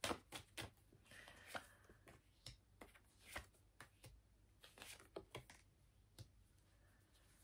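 Faint, irregular clicks and soft taps of tarot cards being handled, about a dozen over several seconds, in a near-silent room.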